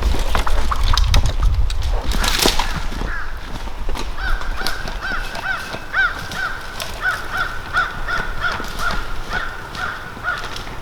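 A bird calling a long series of short, evenly spaced notes, about two or three a second, starting a few seconds in and running almost to the end, after some rustling and clicks at the start.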